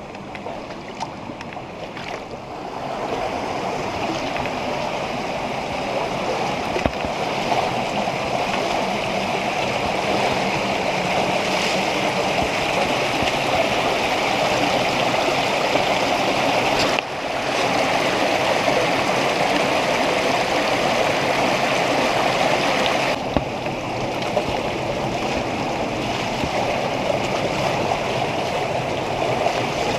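Running water of a spring-fed stream rushing over rock in a steady rush that grows louder a couple of seconds in, with a brief sudden drop in the middle.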